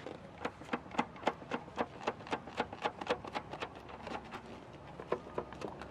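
A rubber balloon patted repeatedly against the painted cement wall of a flower pot, making short light taps about four a second.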